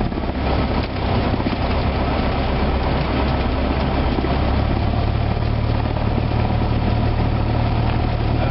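Cessna 172's piston engine and propeller running steadily at low taxi power, heard from inside the cabin as a continuous low drone.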